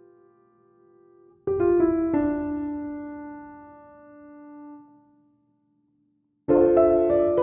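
Background piano music: a phrase of notes struck about a second and a half in and left to ring and fade, a short pause of silence, then another phrase near the end.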